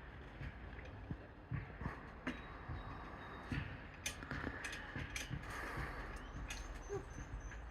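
Irregular soft knocks, taps and clicks of handling noise as a phone is moved about and repositioned, over a faint steady hiss.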